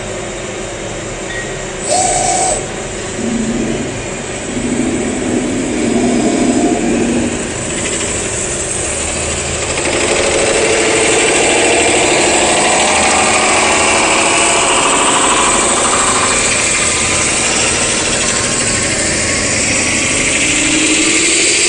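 CNC metal spinning machine forming a sheet-metal reflector: the spindle turning the disc while the forming roller presses it into shape, a loud steady mechanical noise with shifting tones. It grows louder about ten seconds in, and a slowly rising tone comes in near the end.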